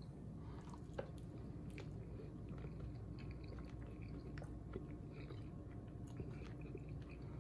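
A man chewing a mouthful of boiled breadfruit with ackee: faint soft chewing and lip sounds, with a few small clicks.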